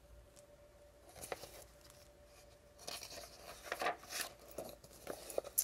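Pages of a large picture book being turned: quiet at first, then paper rustling about three seconds in, with a few light taps near the end.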